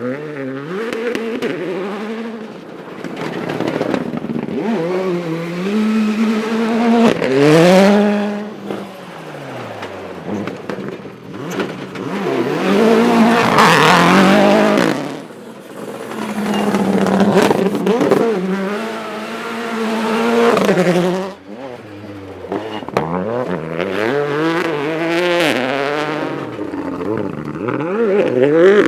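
Rally car engines driven hard on a gravel stage, revs climbing and dropping again and again through gear changes and lifts. The engines are loudest about 7 and 14 seconds in, and the sound cuts away sharply a little past 21 seconds before building again.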